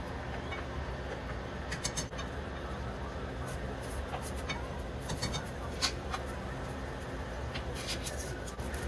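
A spoon stirring chunky stir-fry in thick sauce in a nonstick skillet, with scattered light clicks and scrapes of the spoon against the pan over a steady background hum and hiss.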